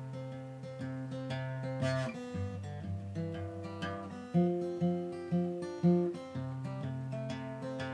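Acoustic guitar playing an instrumental passage of plucked and strummed notes, with four strong accented notes about two a second through the middle.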